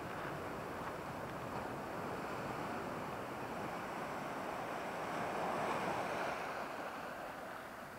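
Sea surf washing against a rocky shore: a steady rush that swells as a wave breaks a little past the middle, then eases.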